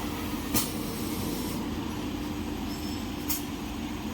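Small toilet paper machine running: a steady mechanical hum with two sharp clicks, one about half a second in and one near the end.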